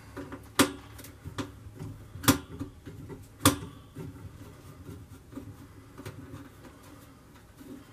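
Sharp clicks and taps of a screwdriver working a small screw and metal cover plate, several loud clicks in the first half, then fainter ticks.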